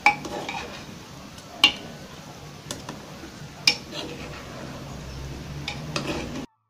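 Metal ladle stirring cooked rice in a metal pressure cooker pot, with a soft scraping rustle and sharp clinks of the ladle striking the pot's side: one at the start, louder ones about one and a half and three and a half seconds in, and a couple more near the end before the sound cuts out abruptly.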